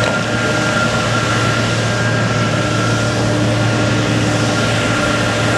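Police water cannon truck running close by: a steady loud mechanical noise with a constant high whine over it.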